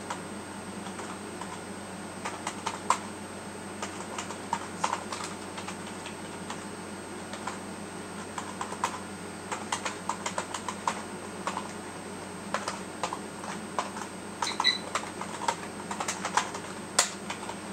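Computer keyboard typing in short, irregular runs of keystrokes with pauses between, over a steady low hum.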